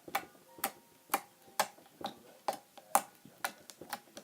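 Crunchy slime being worked by hand, giving off sharp crackling clicks in a steady rhythm of about two a second.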